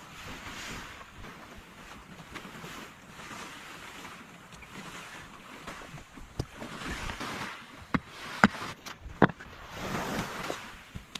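Sea surf washing in slow swells, with wind on the microphone. A few sharp knocks break in between about six and nine seconds in, and the two near the end of that stretch are the loudest sounds.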